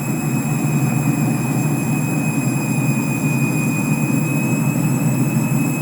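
Candy washing machine running in a suds lock, its drum packed with suds: a steady low rumble with a thin high whine over it.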